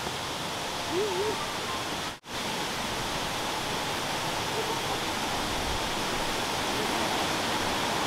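Steady rushing of falling water, an even hiss. It cuts out for an instant about two seconds in, then carries on unchanged.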